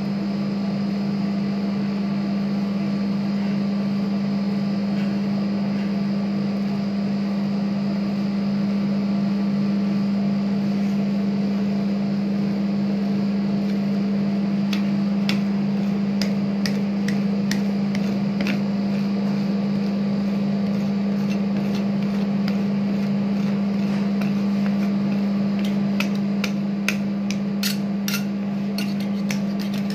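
Steady hum of a rolled-ice-cream machine's refrigerated steel pan, under the scraping of metal spatulas spreading ice cream across the frozen plate. From about halfway through, sharp clicks and taps of the spatula edges on the steel come more and more often.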